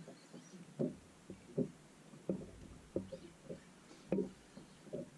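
Small waves slapping against the boat's hull: a series of irregular low knocks, about one or two a second.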